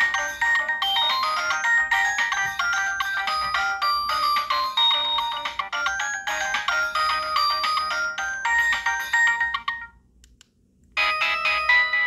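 Samsung SGH-D600 mobile phone ringtone: a quick electronic melody of short notes, several sounding at once. It stops about ten seconds in, and after a second's gap another ringtone begins.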